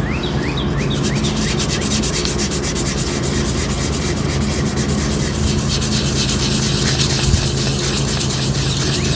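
Sandpaper rubbing over painted sheet metal in fast, even strokes, smoothing out a tape line where touch-up white paint meets the old white on a pickup's fender lip. A steady low hum runs underneath.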